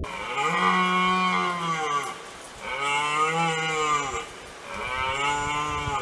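Deer calling: three long, lowing calls, each rising and then falling in pitch, the last cut off abruptly.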